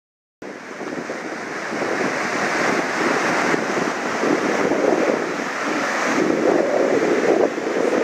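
Strong wind buffeting the microphone on a sailboat, a loud rushing noise that surges unevenly in gusts, with water rushing alongside. It cuts in abruptly about half a second in.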